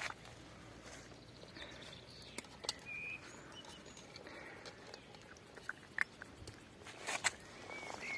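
A litter of young puppies, about four or five weeks old, moving about and feeding: scattered faint clicks and taps, with a few short high squeaks.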